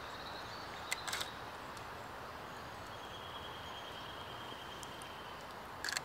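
Medium-format camera shutter firing: a pair of sharp clicks a fraction of a second apart about a second in, over a faint steady outdoor hiss. A faint high steady whine runs through the second half.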